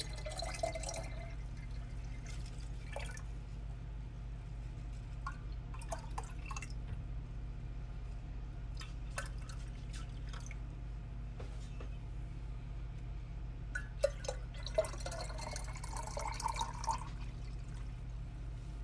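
Liquid being poured and dripping into a jug while iced tea is mixed, with a few light clinks. The pouring is densest near the start and again about three-quarters of the way through, over a steady low hum.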